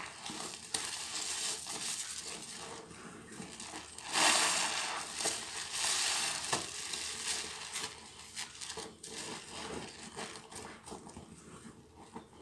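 Hands squeezing a soapy sponge in thick suds, wet crushing and crinkling of foam and water. The loudest squeeze comes about four seconds in and lasts about two seconds.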